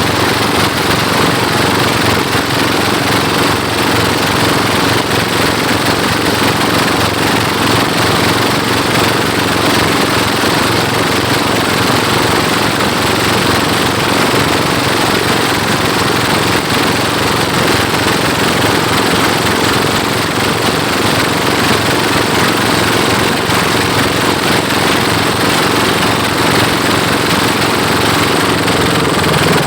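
Pompong boat engines, a 28 hp pull-start engine racing a 33 hp Dompeng engine, running loud and steady at racing speed.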